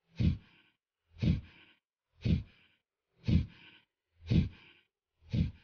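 Kapalbhati pranayama breathing: short, forceful exhalations pushed out through the nose in a steady rhythm, about one a second, six strokes in all.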